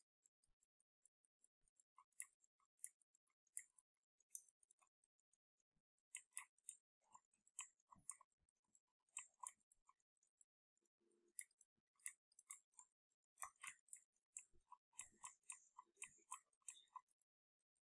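Faint, irregular clicking and tapping of computer input devices, coming in quick clusters with short gaps.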